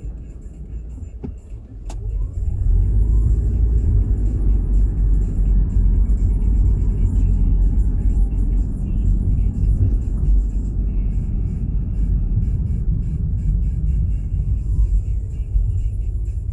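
Car driving in traffic: steady low engine and road rumble that grows louder about two seconds in as the car gets moving, with a single click just before.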